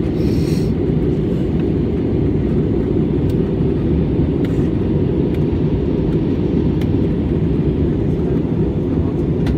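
Steady low rumble of an airliner's engines and airflow, heard inside the cabin in flight, with a brief high hiss about half a second in.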